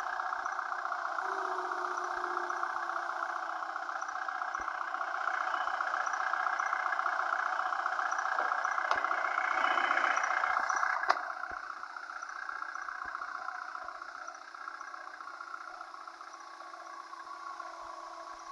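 Diesel vehicle engine running steadily, growing louder until about eleven seconds in, where a sharp click comes and the sound drops back quieter.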